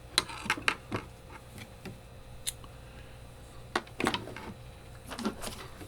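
Scattered light clicks and taps, about a dozen at uneven intervals, from metal hand tools and small parts being handled and set down on a workbench.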